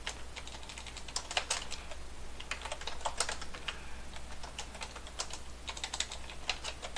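Computer keyboard typing: irregular runs of keystroke clicks with short pauses between them, over a faint steady low hum.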